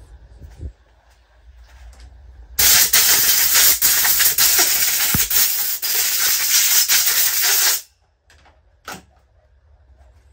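A spray hissing loudly and steadily for about five seconds, starting about two and a half seconds in and cutting off sharply, as the dirty chainsaw engine is sprayed clean. A few light knocks come before and after it.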